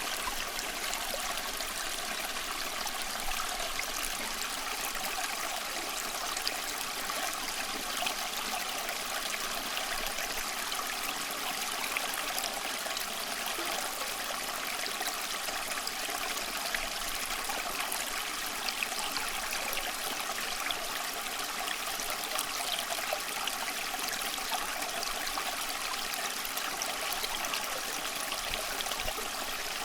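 Running water: a steady, unbroken rush with fine trickling and splashing detail, mostly hiss-like with little low rumble.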